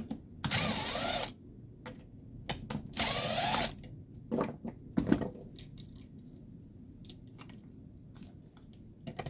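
Power drill running in two short bursts, each under a second, its pitch rising as it spins up, with small clicks and knocks between the bursts.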